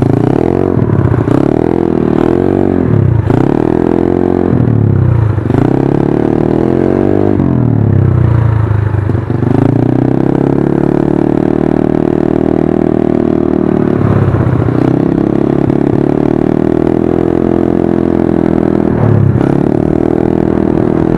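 Yamaha Mio scooter's 59 mm big-bore single-cylinder four-stroke engine breathing through an aftermarket open 'high speed' exhaust pipe, being revved. First come quick throttle blips about once a second, then longer held revs that drop back briefly twice before rising again. The owner says the pipe no longer sounds as crisp as when it was new.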